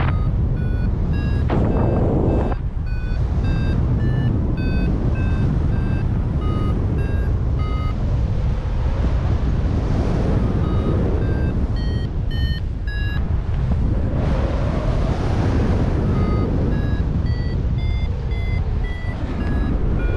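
Paragliding variometer beeping in short tones about two a second, the pitch stepping up and down as the climb rate changes, with a few seconds' pause after the middle: the vario signalling lift. A steady loud rush of wind on the microphone runs underneath.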